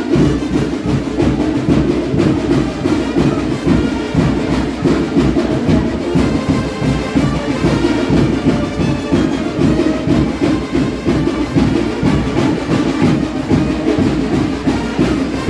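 A live brass band playing chinelo dance music: brass instruments over a steady drum beat.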